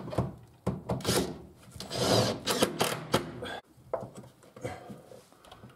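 Wooden glue blocks being rubbed and pressed into the angle under plywood stair treads: irregular wooden knocks mixed with short scraping rubs.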